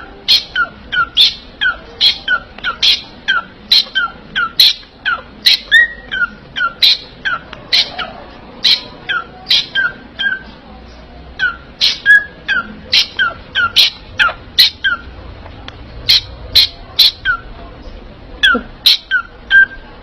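Parrot giving a long run of short, sharp squawks, about two a second, each dropping in pitch, with a couple of brief pauses.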